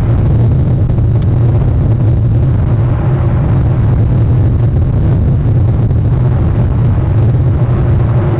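Steady, loud low rumbling noise with a hiss above it, even and unbroken, picked up by an outdoor webcam microphone.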